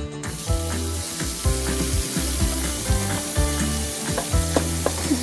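Water running and splashing during hand washing, a steady hiss, over background music with low sustained notes.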